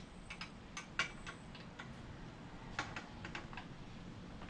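Light, irregular clicks and taps from a small hand ratchet working the mounting bolts of a plastic Givi monolock trunk base plate, with one sharper click about a second in.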